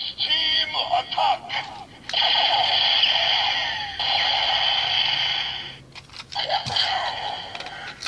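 Kamen Rider Build toy gun with a Full Bottle inserted, playing its electronic voice call and sound effects through its small speaker: short spoken calls, then a sustained sound effect for about four seconds, then more calls near the end.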